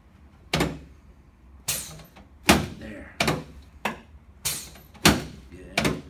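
Chiropractic adjustment of the mid thoracic spine: a quick series of about eight sharp thuds, each a downward hand thrust on the patient's back jolting the padded adjusting table, starting about half a second in.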